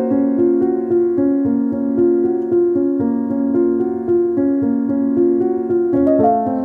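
Background music: a piano melody of evenly paced notes.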